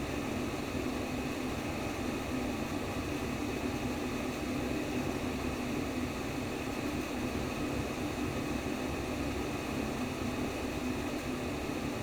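Simulated womb sound: a steady, unbroken deep hiss, heaviest low down, with no changes.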